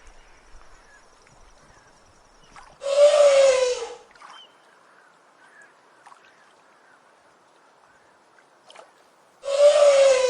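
Elephant trumpeting: two loud, harsh calls about a second long each, several seconds apart, each sliding slightly down in pitch.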